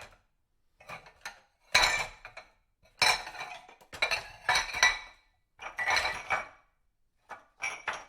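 Dishes being handled at a kitchen sink: clusters of clinks and clatters of crockery and cutlery knocking together, each group ringing briefly, with short pauses between the groups.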